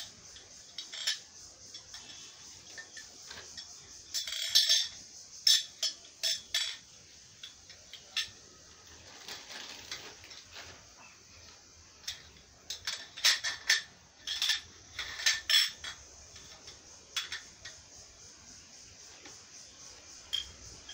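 Steel wardrobe-frame tubes clinking and knocking against each other and the tiled floor as they are handled and laid out, in scattered clusters of sharp clicks, with some rustling of plastic wrapping.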